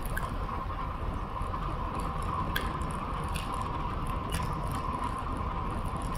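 Road bicycle rolling along asphalt, heard through a bike-mounted camera: steady wind and tyre rumble with a constant hum and a few light ticks.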